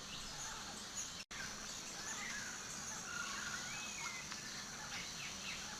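Faint forest ambience: a steady hiss with a few short bird chirps and whistling glides scattered through it, cut out briefly about a second in.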